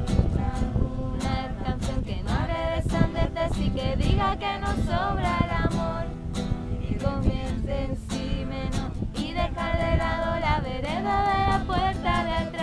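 Pop song with a woman singing over guitar and a steady beat.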